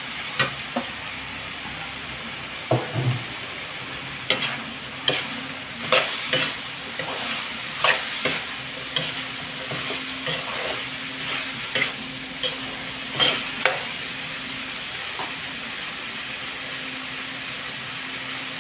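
A metal spatula scraping and knocking against an aluminium wok as cubed bottle gourd is stirred into sizzling sautéed pork and tomato. The clatter stops about fourteen seconds in, leaving a steady sizzle.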